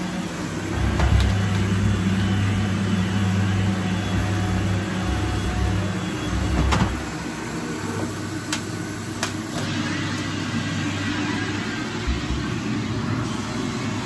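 Upright vacuum cleaner motor running with a steady hum. About seven seconds in it drops to a lower level after a click, and a few sharp plastic clicks follow as the handle is worked.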